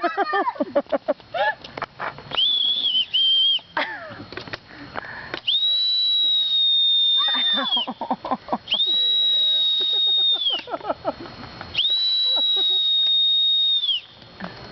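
Plastic Dora the Explorer toy bubble whistle blown in four long, shrill, high-pitched blasts, each one to two seconds long, the pitch sagging as each breath runs out. Short bursts of voices come between the blasts.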